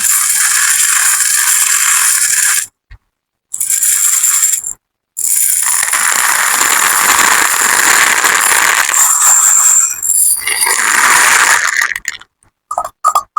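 Small hard candies pouring and rattling into a toy bathtub in three pours, the last and longest for about seven seconds, followed by a few light clicks near the end.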